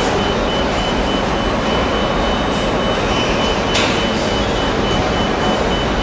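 Steady machinery din of a CRT tube production line, with a high electronic beep repeating rapidly and evenly throughout, a faint steady whine above it, and a couple of light clicks.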